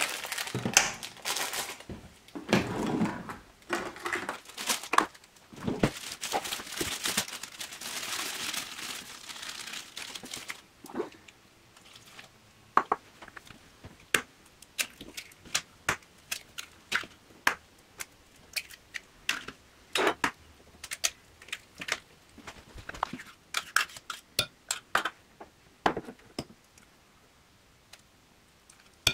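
Cake-mix bag crinkling and tearing open and the dry mix poured into a ceramic mixing bowl. After about ten seconds this gives way to many separate light clicks and taps of eggs and a spoon against the bowl as eggs, butter and peanut butter go in.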